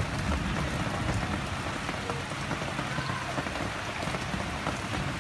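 Heavy rain pouring down steadily, an even hiss of rain hitting the street.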